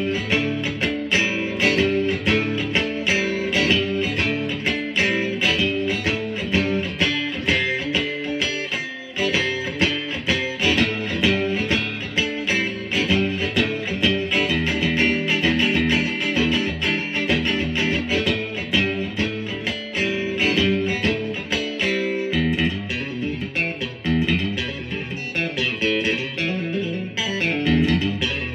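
PRS SE Swamp Ash Special electric guitar played on its middle pickup alone, a continuous run of picked notes and chords.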